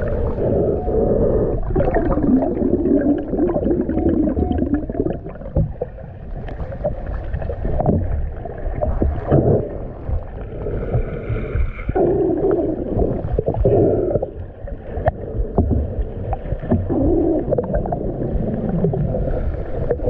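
Muffled underwater sound picked up through a submerged camera: a low rumble and gurgling water noise that swells and fades, with scattered short clicks.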